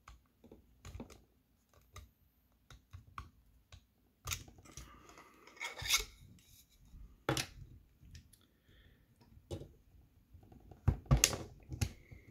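Hard 3D-printed plastic rod parts clicking and scraping against each other as a small spacer is forced into a rod section, with a few louder knocks near the end as the rod is pushed down against a wooden desk to seat it.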